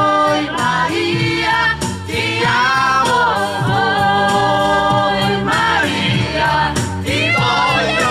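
Music: several voices singing a held refrain together in chorus over a backing track with a regular bass line.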